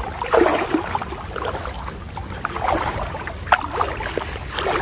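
People wading through thigh-deep muddy floodwater, the water sloshing and splashing irregularly with each stride.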